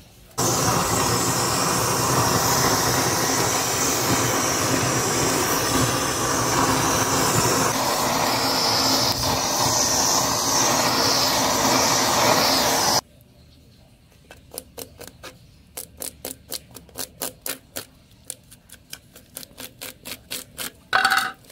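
A loud, steady rushing noise that stops abruptly about thirteen seconds in. After it, a knife blade scrapes scales off snake skin on a wooden chopping board in quick, even strokes, about three or four a second.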